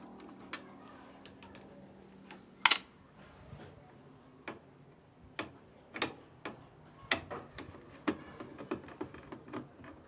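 Irregular clicks and knocks of a screwdriver and the plastic and metal control-panel parts of an LG washing machine being handled as the panel is taken off. One sharp knock a little under three seconds in is the loudest.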